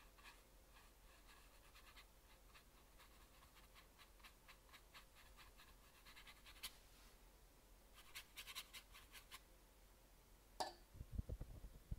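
Faint scratching of a fine watercolor brush's bristles on textured watercolor paper, heard as many small dry ticks, with a denser, louder run of them about eight seconds in. Near the end come a click and a few low thumps.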